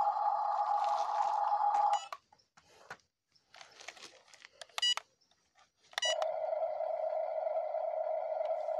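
Electronic sound of RC construction toys through a small speaker: a steady buzzing simulated engine cuts off with a short beep about two seconds in. Another beep comes near the middle, then a beep and a lower steady engine drone start about six seconds in.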